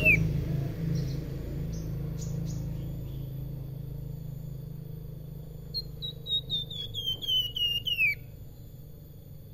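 A caged flamboyan (Horsfield's babbler) singing its whistled 'sulingan' song. The tail of one falling phrase ends right at the start, then about six seconds in comes a quick run of about a dozen short clear whistles, each a little lower than the last, speeding up and ending in a down-slurred note.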